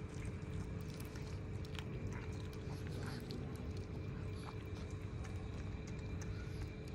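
Stray cats eating off a plywood board: faint chewing and small clicks over a steady low hum.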